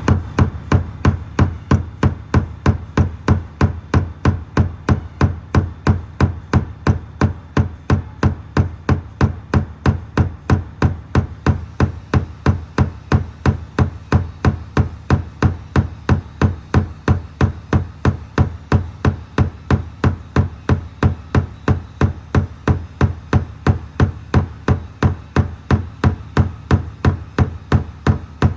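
A steady, loud rhythmic thumping of about three beats a second over a low drone, with no change in pace.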